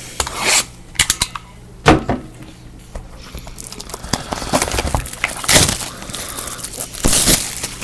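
Football trading card packaging being opened by hand: wrapper tearing and crinkling and cardboard scraping, with a run of sharp clicks and taps as it is handled.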